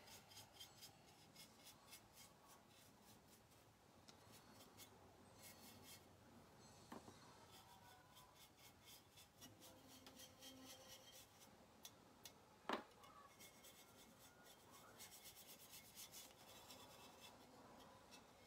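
Faint scratching and rubbing of a stiff-bristled chip brush working acrylic paint onto a ceramic truck, with two light knocks, the louder about two-thirds of the way through.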